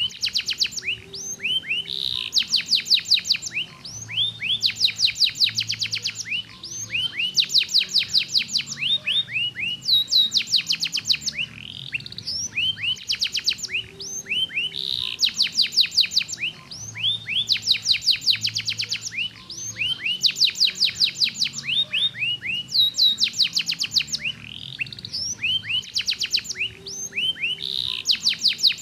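Yellow domestic canary singing a long, continuous song of fast rolling trills. Each phrase is a second or so of rapidly repeated notes, and each runs straight into the next with a different note type.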